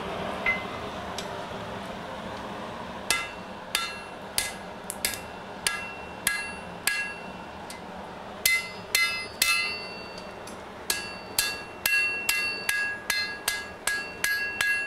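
A hand hammer strikes a red-hot steel bar on an anvil, and the anvil rings after each blow. This is a fire poker being forged. The blows begin about three seconds in, a little under two a second, then come faster, two to three a second. Before them a steady rushing noise fades, likely the coal forge's electric blower.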